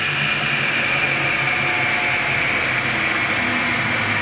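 OMS TRO 330 double head miter saw running, its motors and blades spinning steadily with a high whine over a low hum.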